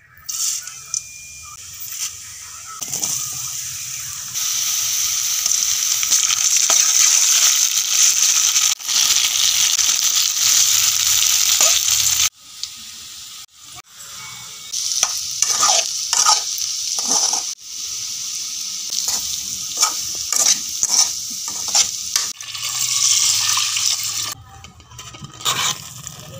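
Food sizzling in hot oil in a pan, with a utensil stirring and scraping against the pan. The sizzle cuts off abruptly about halfway through, then stirring knocks and scrapes come in brief strokes before the sizzle returns near the end.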